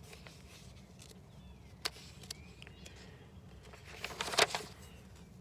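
A picture-book page being handled and turned: a sharp tap about two seconds in, then a short papery rustle about four seconds in. Faint bird chirps in the background.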